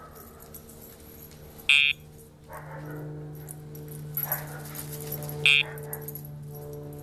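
Two short electronic buzzes, one about two seconds in and one near the end, from a sound box that sounds each time the Dogtra e-collar's pager (vibration) button is pressed on the dog.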